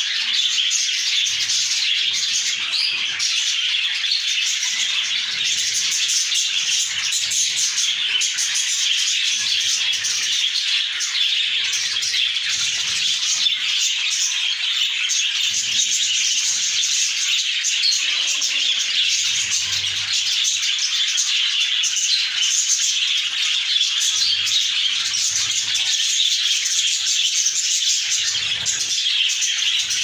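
A flock of budgerigars chattering all at once, a dense, unbroken mass of many small birds' calls at a steady level.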